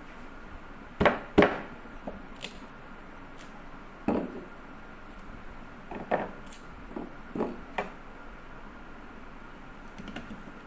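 Irregular sharp knocks and clatters of things being handled on a hard surface: about seven strokes, the two loudest close together about a second in, the rest spread out later.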